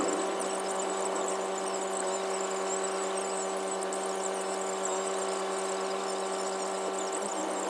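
A steady, unchanging hum made of a few held tones over a faint hiss, like a machine or electrical appliance running.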